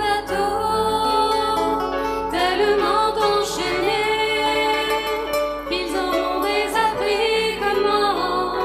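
Choir singing a slow French song with instrumental accompaniment.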